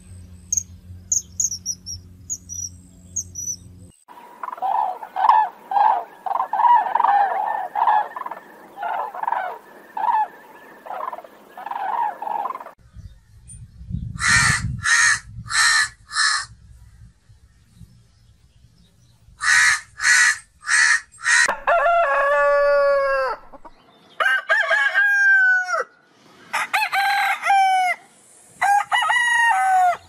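Several birds calling in turn: high chirps at first, then a long run of short notes about two a second, then a crow cawing in quick groups of four or five harsh calls, and near the end long calls that fall in pitch.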